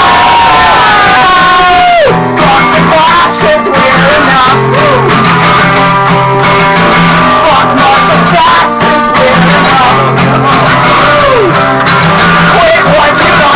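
Live folk-punk song: strummed guitar with a voice singing a long held note that falls away about two seconds in. Wordless singing or shouting follows over the strumming.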